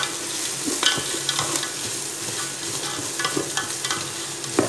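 Dried anchovies, onion, garlic and ginger sizzling in oil in a metal pot while a wooden spatula stirs them, scraping and knocking against the pot now and then, with a sharper knock near the end.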